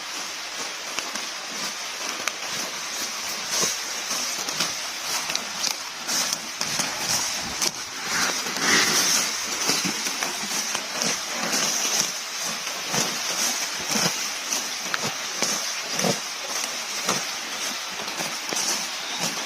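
Water buffalo grazing close up: an irregular run of short crackling and tearing sounds as grass is ripped up and chewed, over a steady high hiss.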